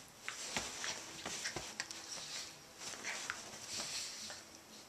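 Two small dogs play-wrestling on a bed: scuffling and rustling of the fleece blanket in irregular bursts, with short scratches and a few soft thumps as they tumble.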